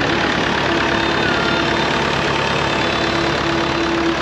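Vintage McCormick diesel tractor engine running steadily as the tractor drives slowly past, with other old tractor engines running behind it.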